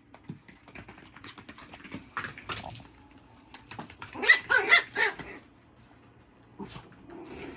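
A dog barking in short bursts, loudest in a quick run of barks about four seconds in.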